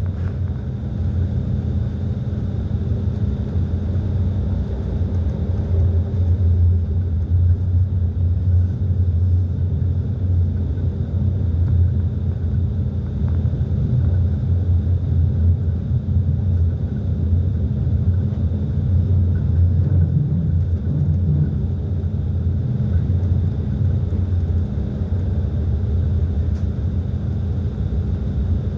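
Passenger train running along the track, heard from inside the carriage as a steady low rumble with a faint, constant high-pitched tone above it.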